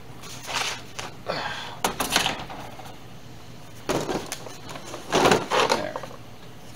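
Molded plastic car door panel being lifted and turned over on a workbench: a series of short scrapes and knocks, the loudest about five seconds in.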